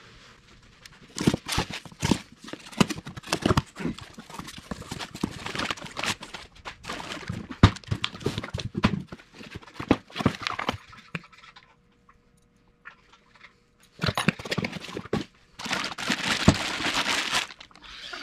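Irregular knocks and clatter of objects being handled, then after a short pause two stretches of dense scraping or rustling noise near the end.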